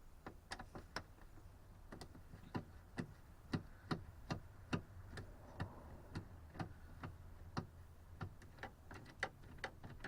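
A screwdriver backing out Phillips screws from Corvette interior trim: sharp, irregular clicks, about two or three a second.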